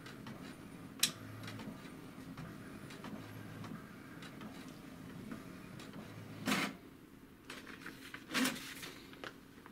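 HP DeskJet 2130 inkjet printer printing a page: the print carriage makes repeated passes about every two seconds, with a sharp click about a second in. Two louder rasps come later, at about six and a half and eight and a half seconds.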